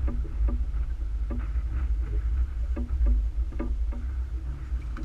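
Small boat on the water: a steady low rumble with irregular light knocks, about one or two a second.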